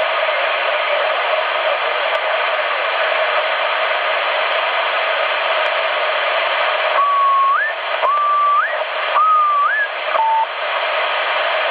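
CB radio receiver on 27.555 MHz upper sideband putting out a steady rush of band noise. About seven seconds in, a received station sends three short electronic tones, each held and then sliding sharply upward, then a brief lower beep, and the hiss carries on.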